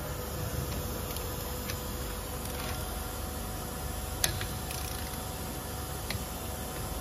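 Steady background hum, like a fan or ventilation, with a few faint clicks from a hand wrench and lug nut socket working a wheel nut, and one sharper click about four seconds in.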